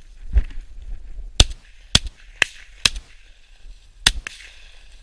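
Shotgun shots fired at a flushing game bird: a quick series of sharp reports over about three seconds, the loudest about a second and a half in and a last one near the end.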